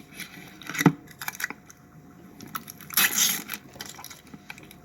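Close-up eating sounds from a sub sandwich: wet mouth clicks and chewing. A sharper click comes just under a second in, and a short noisy crunch about three seconds in.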